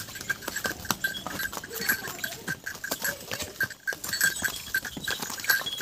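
Horse's hooves clopping at a walk on a rough stone path, a scatter of irregular knocks. A short high note repeats a few times a second alongside.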